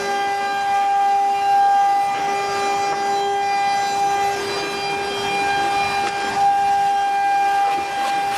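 CNC router spindle running at speed and routing grooves into an MDF door panel: a steady high whine over the rushing noise of the cut.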